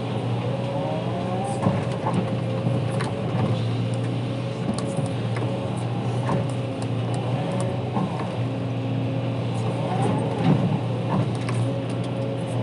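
Hydraulic excavator's diesel engine running steadily under load, heard from the cab, with the hydraulic whine rising and falling as the boom and bucket move. The bucket knocks and scrapes now and then as it cuts into the soil.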